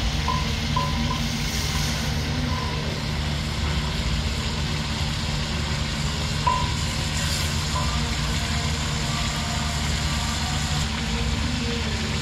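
Chicken pieces frying in deep hot oil in an iron karahi: a steady sizzle over a low steady hum, with a few short faint beeps here and there.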